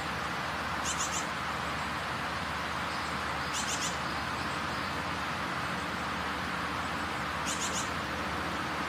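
Steady outdoor hiss, with a small animal's short, very high chirp coming three times a few seconds apart, each a quick run of a few notes.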